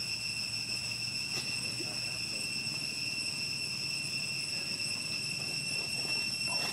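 Steady, high-pitched drone of insects, holding one unchanging pitch throughout.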